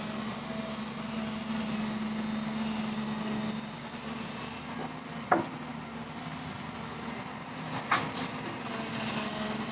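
A JCB machine's diesel engine running steadily, with a sharp metallic clank about five seconds in and a couple of lighter knocks near eight seconds.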